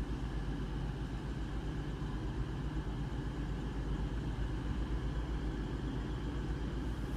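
Class 222 Meridian diesel multiple unit with its underfloor diesel engines running, a steady low drone that does not change.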